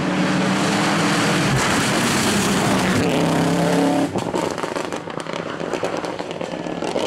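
Rally car engine at full throttle on a wet tarmac stage, changing up twice. It lifts off about four seconds in, leaving a loud hiss of tyre spray and a few sharp cracks as the car pulls away.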